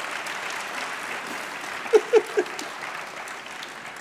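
Audience applauding, with three brief shouts from the crowd about halfway through; the clapping thins out near the end.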